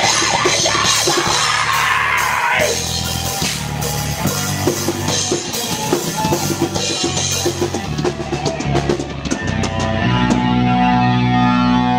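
Live rock band playing, with busy drumming under electric guitars. About ten seconds in the drumming stops and a guitar chord is left ringing and held, closing the song.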